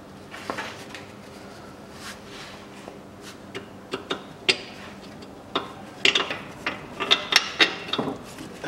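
Metal clinking and knocking as a new rear lower engine mount and its bolt are worked into place by hand under the car. A few scattered clicks at first, then a quick run of sharp knocks and clinks in the second half.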